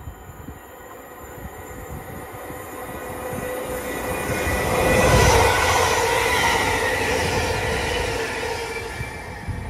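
Greater Anglia Class 720 Aventra electric multiple unit running through the station without stopping. It grows louder as it approaches, is loudest about five seconds in, then fades. A steady whine sits over the rush and rumble of the wheels on the rails.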